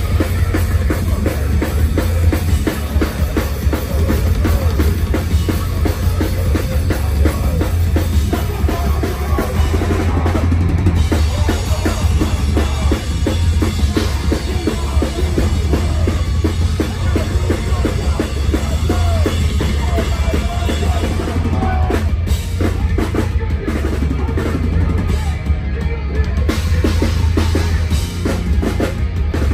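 A deathcore band playing live at full volume: pounding kick drums and cymbals over distorted guitar and bass, with a heavy, booming low end.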